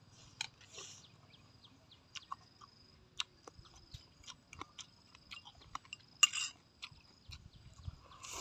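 Close-up mouth sounds of a man chewing raw onion slices and herbs: many short wet clicks and smacks, with a louder crunch about six seconds in.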